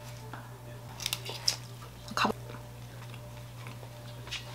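A Korean steamed bun (hoppang) being handled and eaten: a few short, soft rustles and mouth sounds as its paper liner comes off and it is bitten, over a low steady hum.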